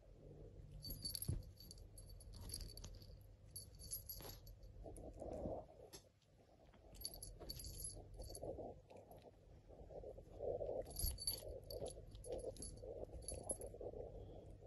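Soft rustling and bumping as a cat paws and bites at a dangled jelly snake on bedding, broken by about eight brief bursts of light metallic jingling.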